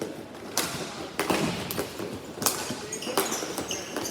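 Ball hockey play: a string of sharp knocks and clacks from sticks and the plastic ball hitting sticks, floor and boards, with a few short high squeaks near the end.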